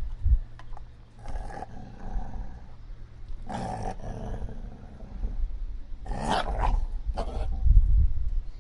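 Dog growling low and steadily, broken by four short, louder snarling outbursts.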